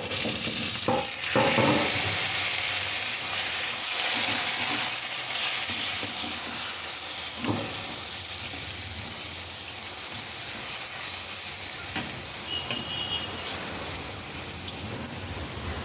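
Vegetables, fried onions and freshly added yogurt sizzling in hot oil in a kadai, stirred now and then, with a few light knocks of the spoon. A steady sizzle that eases off slowly.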